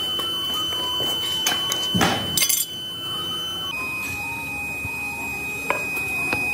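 Black foundry moulding sand being pressed and scraped by hand into a steel mould flask: soft scrapes, pats and a brief hiss of sand, with a few light knocks. A steady high-pitched whine runs underneath and drops slightly in pitch a little past halfway.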